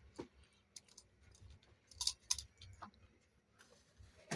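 A few light, scattered clicks and knocks of kitchen items being handled during food preparation, two close together about two seconds in and a sharper one near the end.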